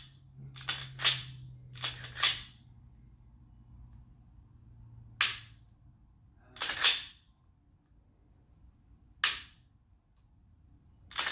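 A Glock 23 pistol being racked and dry-fired after a reduced-power ZEV 2 lb striker spring has been fitted. There are about eight sharp metallic clicks and clacks: some come in quick pairs, from the slide going back and snapping forward, and a few come singly, from the striker releasing.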